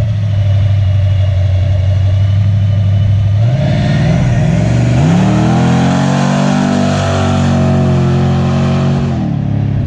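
Carbureted engine of a 1972 Camaro idling steadily, then blipped once about three and a half seconds in. It is then revved and held at a higher speed for about four seconds, and drops back to idle near the end as the throttle returns on its newly installed throttle bracket and return springs.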